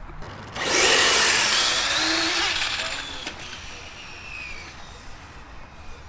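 Remote-control car speeding past on a drag run: a sudden burst of high-pitched motor whine and tyre noise that falls in pitch and fades over about three seconds.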